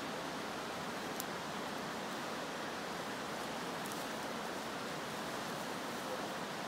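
Steady rush of a fast-flowing river over rapids, with a couple of faint clicks.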